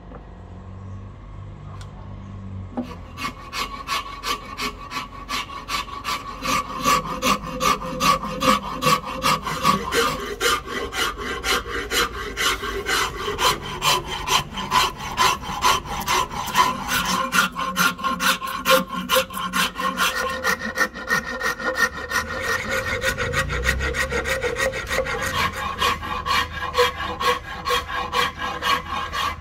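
Steel hand file rasping a rosewood axe-handle blank in quick, even strokes, a few a second, starting about three seconds in.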